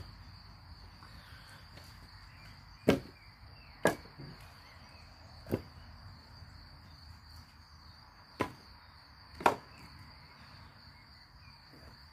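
Split firewood knocking as pieces are set onto a woodpile: six sharp wooden knocks spread irregularly, the loudest about three seconds in and near the end. A steady high chirring of insects runs underneath.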